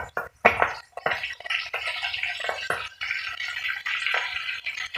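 Milkfish steaks frying in hot oil in a wok, a steady dense crackle and sizzle with a couple of louder pops near the start. The soy-sauce marinade on the fish makes the oil spatter.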